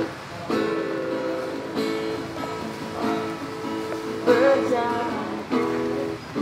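Background music played on a plucked string instrument, with chords struck about once a second.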